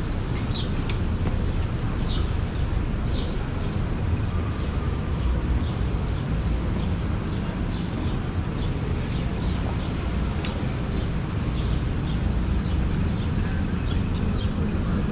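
Steady low rumble of outdoor background noise, with short high chirps repeating about once a second.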